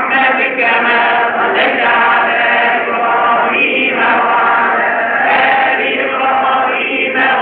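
Men's voices chanting a devotional Arabic chant, with long held notes and no break.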